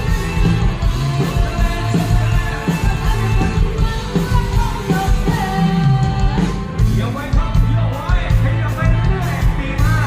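Live Thai ramwong band music: a singer over a steady beat with heavy bass. The vocal line stands out most in the second half.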